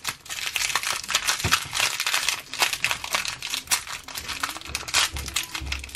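Plastic blind-bag wrapper crinkling as fingers unwrap and pick at it, a dense run of irregular crackles.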